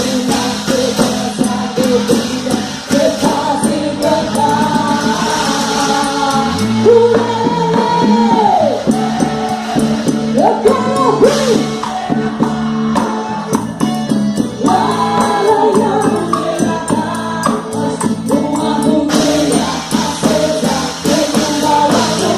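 Festa junina quadrilha music: singing over a steady, brisk percussion beat, played loud.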